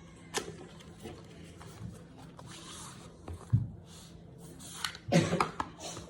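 Packaging being handled during an unboxing: soft rustling with scattered taps and clicks, a dull thump about three and a half seconds in, and a flurry of knocks near the end.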